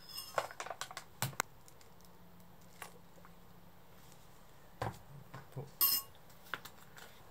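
Metal measuring spoon tapping and scraping against a glass mixing bowl in two clusters of light clicks and clinks. The sharpest, ringing clink comes near the end, as the spoon is laid across the bowl's rim.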